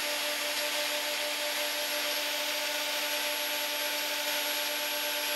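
DeWalt angle grinder in a homemade jig grinding across a worn metal roller mill wheel on a shallow truing cut. It gives a steady grinding hiss with a constant whine.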